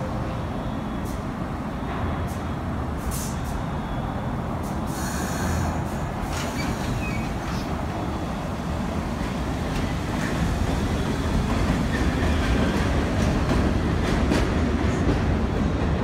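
A train running on the tracks: a steady rumble of wheels and track noise with scattered clicks. There is a brief high hiss about five seconds in, and the sound grows louder from about ten seconds in.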